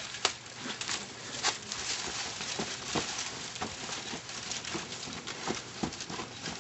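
Faint scattered scuffs and light knocks over a steady outdoor hiss, from two people scuffling and stepping about on grass.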